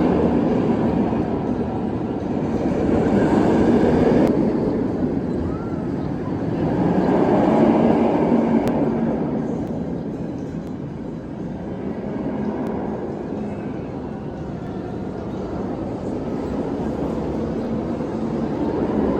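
Rumble of an amusement park ride train running on its track, swelling twice and then easing, over faint crowd voices.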